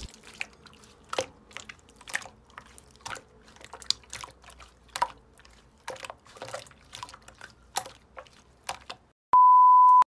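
Slime being pressed and squished, giving scattered small wet pops and clicks, then a loud steady beep near the end lasting under a second.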